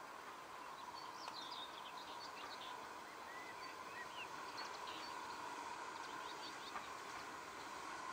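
Small birds chirping over the faint, steady sound of a steam-hauled train approaching in the distance, slowly growing louder.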